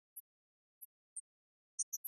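Near silence broken by about five tiny, very short high-pitched ticks scattered irregularly through the two seconds.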